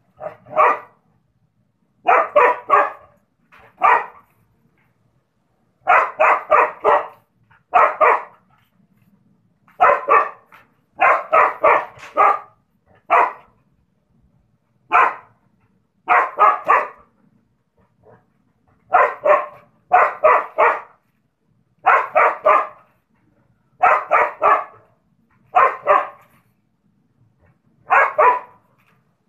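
Dog barking at a rooster, in quick groups of two to four barks every couple of seconds with short pauses between.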